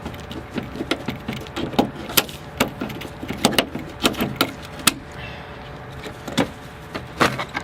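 Irregular sharp clicks and clacks of metal parts and hand tools being handled, over a faint steady hum.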